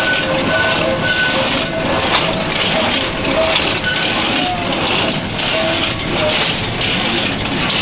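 Motor-driven cashew cutter machine running and cracking raw cashew nuts fed from its hopper: a continuous crunching clatter that pulses roughly every half second.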